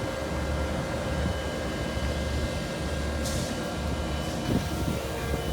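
A truck's engine idling: a steady low hum with steady tones above it. A brief hiss comes about three seconds in.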